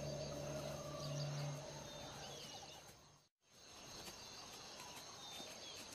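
Bush ambience: a steady high insect trill with a few faint bird chirps. Low sustained music notes fade out in the first two seconds, and the sound drops out for a moment a little past the middle.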